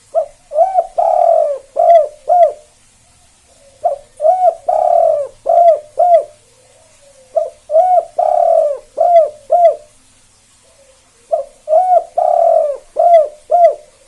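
A spotted dove (tekukur) singing its cooing song four times, about one phrase every four seconds. Each phrase has a short opening coo, a longer drawn coo, then two short clipped end notes: the 'kuk 2' song type that keepers prize.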